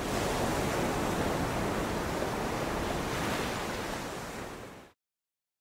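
Steady rushing noise that swells in at the start and cuts off abruptly about five seconds in.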